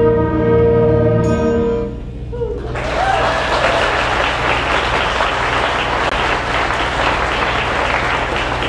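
Elementary-school concert band of woodwinds and brass holding its final chord, which dies away about two seconds in. After a short pause the audience breaks into steady applause.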